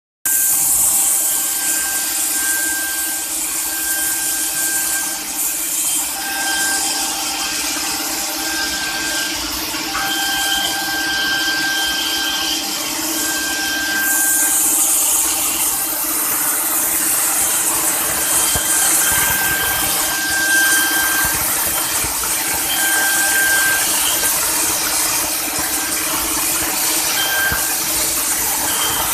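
CNC machine running: a steady high hiss over a low hum, with short whining tones that come and go as it works.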